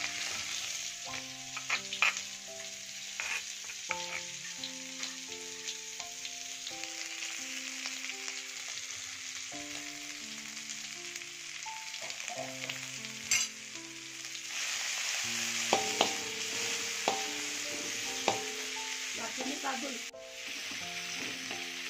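Ground spice paste of shallot, garlic and chili sizzling in hot oil in a steel wok, with a few scrapes of a spatula against the pan. The sizzle grows louder about two-thirds of the way through. Soft background music plays underneath.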